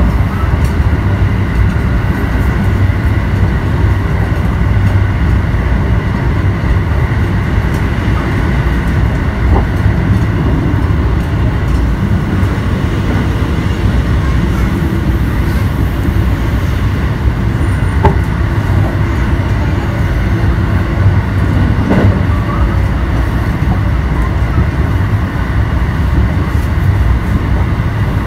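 Steady running noise of a JR Kobe Line commuter train at speed, heard inside the passenger car.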